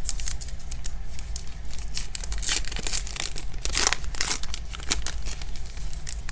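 A baseball card pack's crimped paper wrapper torn open and crinkled by hand: a run of sharp rustling and tearing sounds, loudest in the middle.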